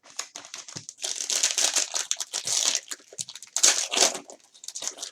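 Plastic trading-card packaging crinkling and crackling as it is handled, in a dense, irregular run of small crackles that is loudest through the middle.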